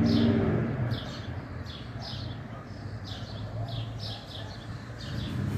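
Birds chirping, short high falling chirps repeating about once or twice a second, over a low steady background hum.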